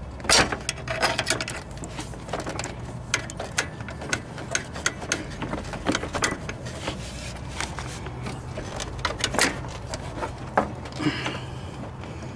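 Irregular clicks and knocks as the 2006 Ford F-150's metal transmission cooler line is wiggled and pushed into its quick-connect fitting on the radiator, over a low steady hum.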